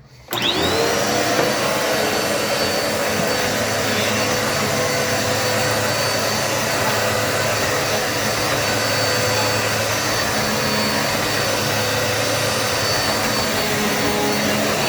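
Dirt Devil Multi-Surface vacuum cleaner switched on just after the start, its motor spinning up with a quick rising whine, then running steadily at full speed.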